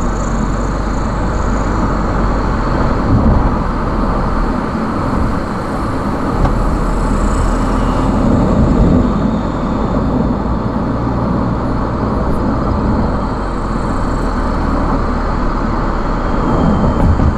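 Car driving along a highway: steady engine and tyre road noise, swelling slightly a few times.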